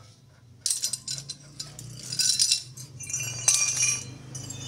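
Metal tools and parts clinking and rattling in several clusters of sharp, ringing knocks, over a steady low hum.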